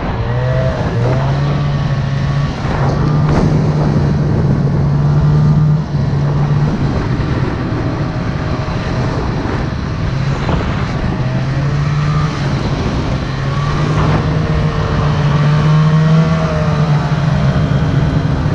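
Snowmobile engine running while riding through deep powder, its pitch shifting up and down with the throttle.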